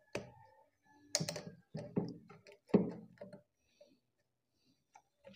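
Pliers clicking and tapping against a metal spring hose clamp on a washing machine's rubber hose: a few sharp clicks over the first three and a half seconds.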